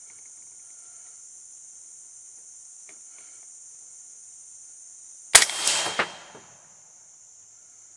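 A single 300 Blackout rifle shot about five seconds in, sharp and very loud, followed by a short echoing tail. A steady high chorus of insects runs underneath.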